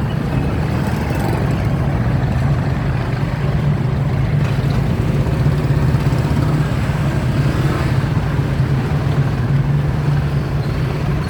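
An engine running steadily at idle, a continuous low hum with no change in speed.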